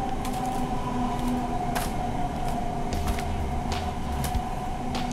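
Passenger train running, heard from inside the carriage: a steady drone with a held whine and low rumble, and scattered sharp clicks.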